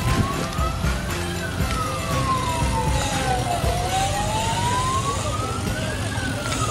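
Siren wailing, its pitch rising and falling slowly in one long sweep up and down about every five seconds, over a steady low rush of wind on the microphone.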